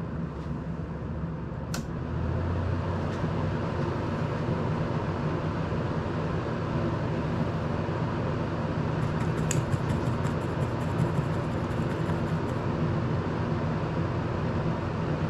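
Electric desk air-circulator fan running steadily with a low hum, getting louder about two seconds in. A sharp tick comes near the start and a run of faint light clicks around the middle.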